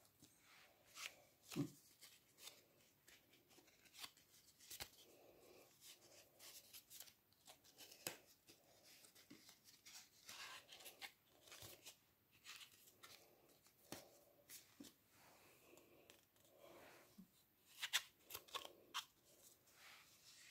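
Faint rustles, flicks and light taps of card and paper as the pages, flaps and pull-out tags of a handmade cardboard scrapbook are turned and lifted, with a few sharper snaps near the start and near the end.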